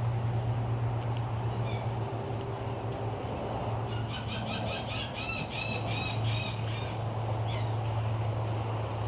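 Birds calling: a run of about ten short, quick squawking calls in the middle, with single calls a little before and after. A steady low hum lies underneath throughout.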